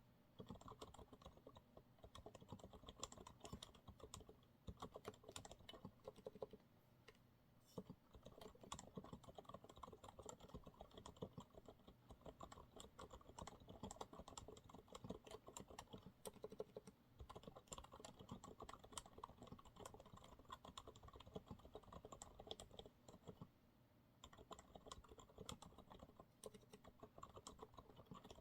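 Quiet, continuous typing on a Monsgeek MG108W mechanical keyboard with TTC silent brown switches: fast runs of soft keystrokes broken by short pauses about a third of the way in, near the middle and toward the end.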